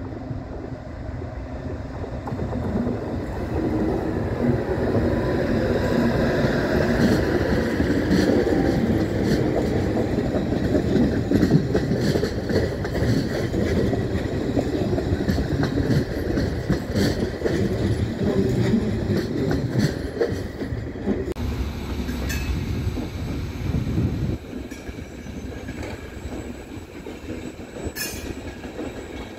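A passenger train rolling slowly past through the station throat, running as an empty stock movement: a heavy rumble with wheels clattering over rail joints and points, and some wheel squeal. The rumble drops away about two thirds of the way through, leaving a quieter tail with a single sharp click near the end.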